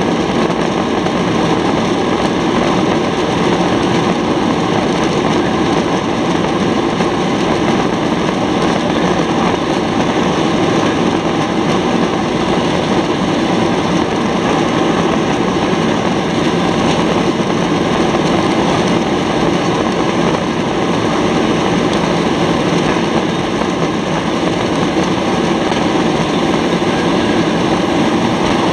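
Boeing 737-800's CFM56-7B jet engines at high thrust, heard from inside the cabin during the takeoff roll as one steady, loud, even noise.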